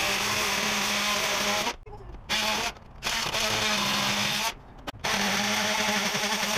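Power drill running in four runs with short pauses between, a steady motor whine, driving out the screws so the old window flashing can come off.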